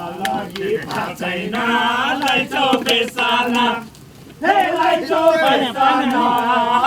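A group of voices singing a chant-like song together, breaking off briefly about four seconds in before carrying on, with a few sharp clicks over the singing.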